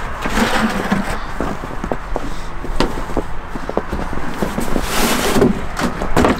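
Footsteps in snow and a plastic bucket knocking and its handle rattling, with many short knocks, then a portable toilet's plastic door being unlatched and swung open about five seconds in.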